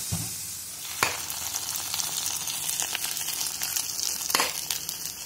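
Hot ghee sizzling with fried cashews, cumin and crushed black pepper in it, as the tempering is tipped from a small kadai onto cooked pongal. Two sharp metal knocks, about a second in and again near the end.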